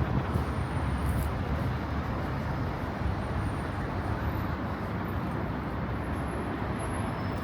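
Steady city street noise, mostly a continuous rumble of road traffic, with no single event standing out.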